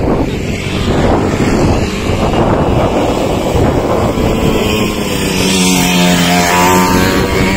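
A motor vehicle engine running, with wind noise on the microphone; about four and a half seconds in it settles into a steady hum with a clear pitch.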